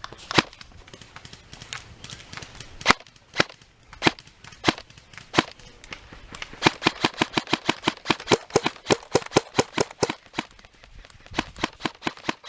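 Airsoft guns firing: a few scattered single shots, then a rapid string of about six shots a second for a few seconds, and another short string near the end.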